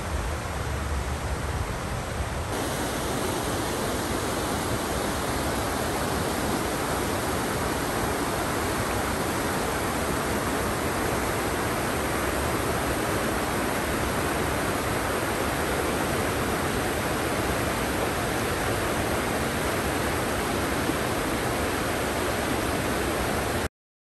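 Steady rushing noise with no distinct events; its tone shifts slightly about two and a half seconds in, and it drops out for a moment near the end.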